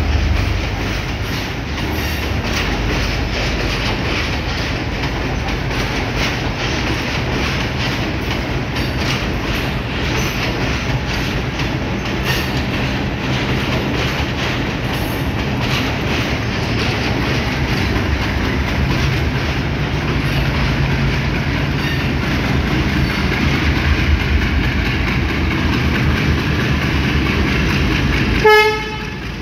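Sri Lanka Railways Class M10A diesel locomotive running steadily with a low drone as it pulls a train of coaches out of the station. About a second before the end its horn sounds once, briefly.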